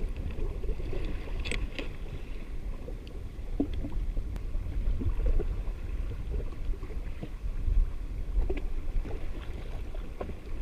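Steady low rumble of wind and water chop around a drifting jet ski, with a few short clicks and taps from a spinning reel as its handle is switched from right- to left-hand.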